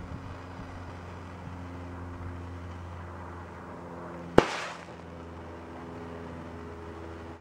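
Potassium tetraperoxochromate(V) crystals, heated by a propane torch, going off: one sharp bang about four seconds in that trails off in a brief hiss, over a steady low hum.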